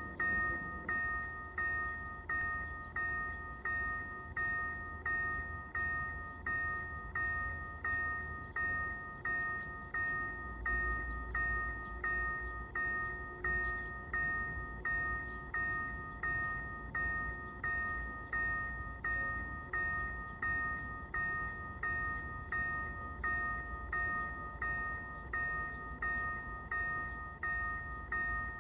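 Korean railroad crossing warning bell ringing steadily, an electronic ding of several tones repeating just over once a second. It signals that a train is approaching and the crossing is closed.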